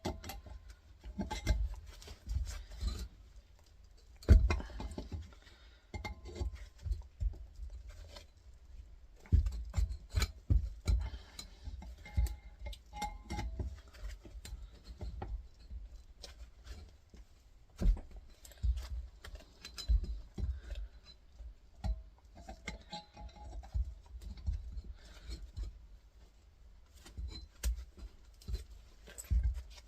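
Irregular knocks, taps and metallic clinks of hand tools working on a steel compressor shell as a small copper pipe is freed from it, with a few sharper knocks along the way.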